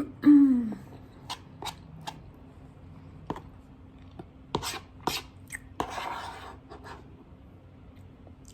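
Close-miked eating sounds: a short falling 'mm' hum just after the start, then scattered sharp mouth clicks and chewing, with a brief rustle or scrape about six seconds in.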